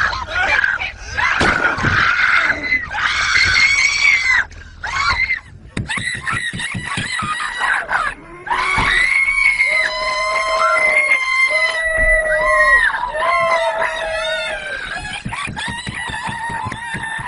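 Several people screaming in panic inside a car, their shrieks overlapping. From about nine seconds in, long, high-pitched held screams.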